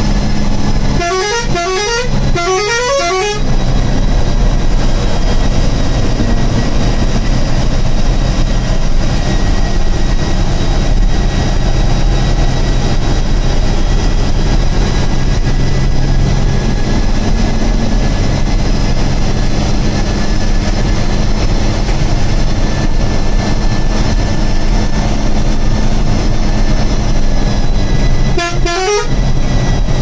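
Ashok Leyland Viking bus's diesel engine running steadily at cruising speed, heard inside the driver's cabin. Its air horn sounds twice in quick succession about a second in, each blast a rising run of notes, and once more near the end.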